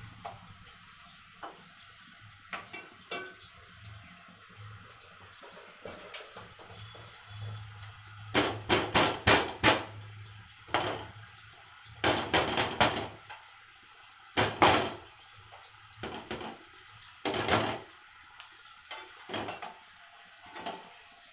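Kitchen work at a gas stove: several short, loud runs of clatter and splashing from cookware, about eight, twelve, fourteen and seventeen seconds in, over a low background.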